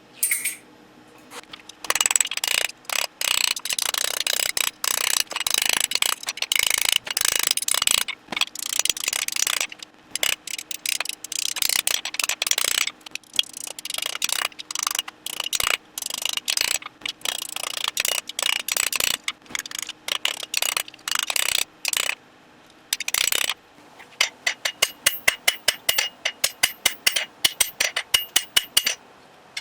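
Hammer blows on hot iron at the anvil, struck in rapid runs with short pauses. Near the end they turn into evenly spaced strikes, about three a second, each with a high metallic ring.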